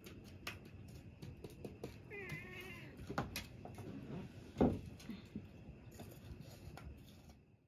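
A short wavering animal call about two seconds in, among scattered clicks and knocks; the loudest is a single knock a little past the middle.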